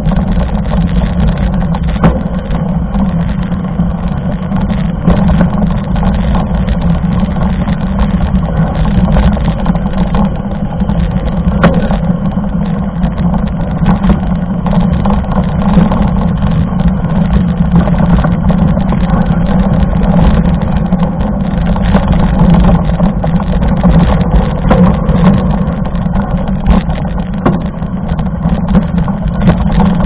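Steady wind rumble on a bike-mounted camera's microphone while riding, mixed with mountain bike tyres rolling over a gravel dirt road and small clicks and rattles from the bike over the bumps.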